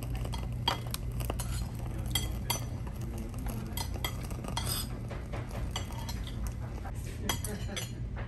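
Cutlery and dishes clinking: many short, light clinks at irregular moments, over a steady low background hum.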